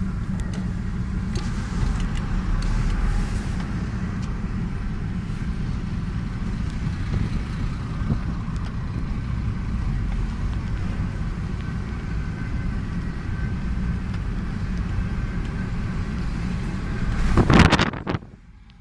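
Steady low road and engine rumble heard inside a moving car's cabin. Near the end a brief loud rush of noise, after which the sound drops off sharply.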